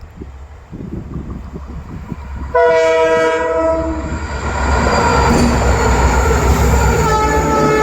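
Indian Railways locomotive approaching with a low rumble and wheel clatter, then sounding its twin-tone horn in a loud blast about two and a half seconds in that lasts about a second and a half. The train then passes close with loud rumbling, and the horn sounds again near the end.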